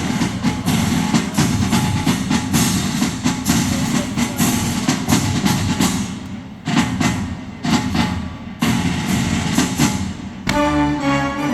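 Rapid fireworks bangs and crackling over loud music. Near the end the bursts thin out and sustained musical notes come through clearly.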